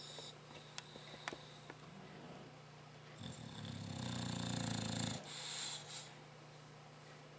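Victorian bulldog snoring in his sleep: one long, loud snore starting about three seconds in and lasting about two seconds, followed by a shorter noisy breath.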